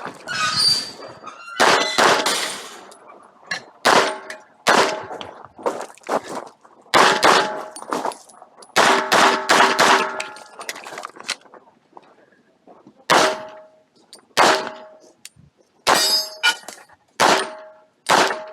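Glock 45 9 mm pistol fired in irregular strings of shots, pairs and triples with short pauses between them. Many shots are followed by a metallic clanging ring.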